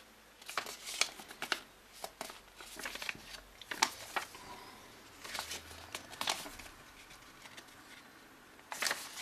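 Paper leaflet rustling and crinkling as it is unfolded and its pages handled, in short irregular rustles with a quieter stretch near the end.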